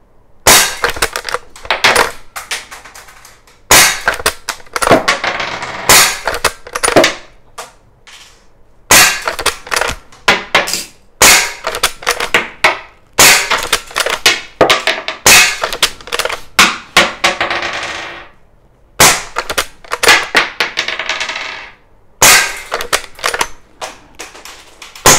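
Umarex Legends Cowboy lever-action CO2 BB air rifle fired shot after shot, a sharp crack about every two to three seconds. Between shots come the metallic clicks and clacks of the lever being worked to eject the BB cartridge and chamber the next. A few shots trail off in about a second of hiss.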